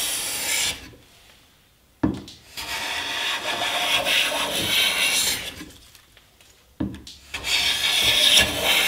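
Metal hand bench plane cutting shavings from a wooden board in long push strokes: a stroke ending about half a second in, then two longer strokes about five seconds apart, each starting with a sharp knock as the plane meets the wood.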